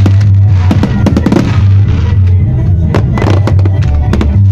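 Aerial fireworks shells bursting in a quick string of sharp bangs, over loud music played with the display.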